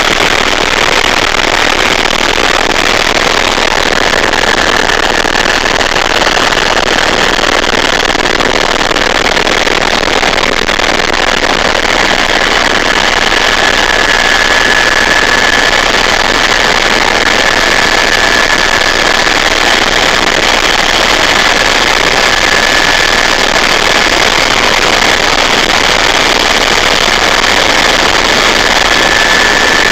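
Helicopter in flight heard from inside the cabin: loud, steady engine and rotor noise, with a thin, steady high whine that comes in a few seconds in.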